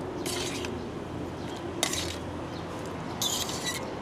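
A spoon or chopsticks clinking against a bowl of noodle soup in three short bouts, with one sharp clink about two seconds in.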